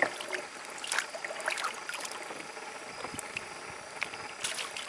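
Small splashes and water lapping at a kayak's side, with a few short, sharp clicks and knocks over a steady hiss.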